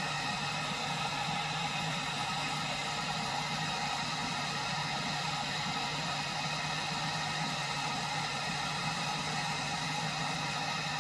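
Propane camp stove burner running steadily at a high flame under a pot of water that is heating toward the boil.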